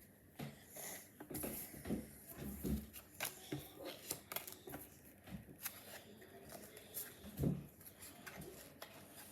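A foil Pokémon booster pack crinkling and rustling as it is torn open, with many quick irregular crackles and ticks.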